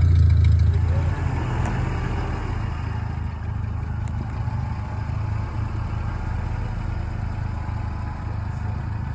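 Small car engine running: loud with a strong low hum at first, then dropping in level about a second in and carrying on at a steady, rougher running note.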